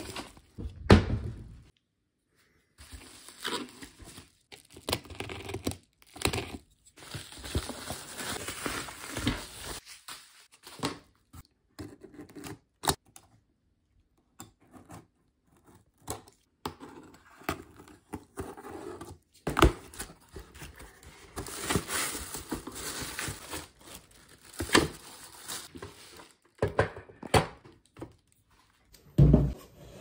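A cardboard box being handled and unpacked: packing tape slit with a utility knife and torn away, cardboard and packing rustling and scraping, with scattered knocks as the box and its contents are handled.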